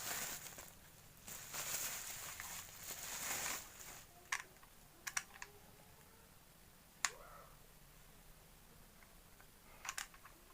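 Rustling as parts and packaging are handled, followed by a few short, light clicks and taps of hard plastic, with the sharpest click about two-thirds of the way through and a quick pair near the end.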